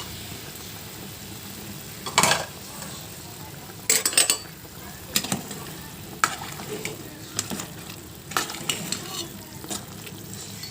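Covered pot of farm chicken boiling on the stove: a steady bubbling hiss, with scattered sharp metallic clinks and knocks of the pot and utensils, a quick cluster of them about four seconds in.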